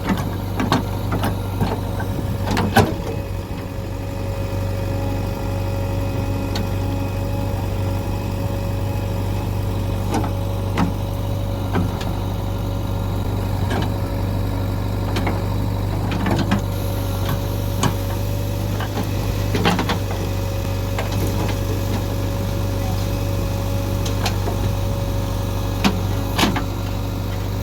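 JCB 3DX backhoe loader's diesel engine running steadily, with short sharp knocks every few seconds from the machine at work.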